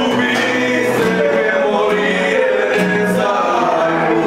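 Men singing together to two acoustic guitars, with held, sustained notes.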